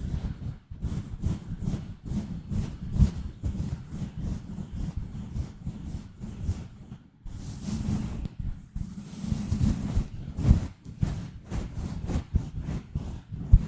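Fingertips scratching and rubbing directly on a microphone, a fast irregular run of short strokes with a heavy low rumble from the contact and a softer hissing rub about two-thirds of the way through.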